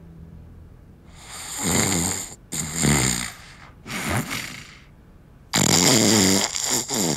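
A man snoring loudly in his sleep: four long snores with short pauses between them, the last one the longest.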